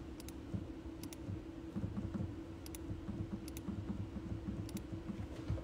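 Computer keyboard clicking: a few sharp clicks, mostly in quick pairs about a second or more apart, over a steady low hum.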